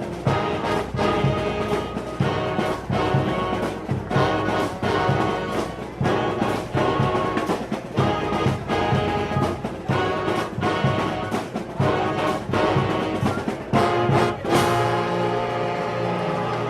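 Brass-heavy instrumental music playing chords over a steady beat. Near the end it settles on one long held chord.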